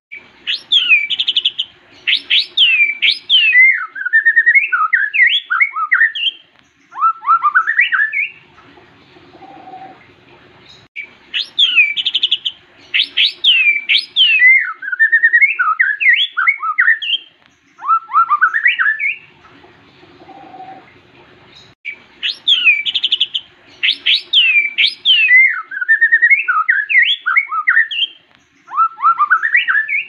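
White-rumped shama (murai batu) singing: a fast run of loud whistles sliding up and down, each phrase about eight seconds long, given three times with pauses of a couple of seconds between.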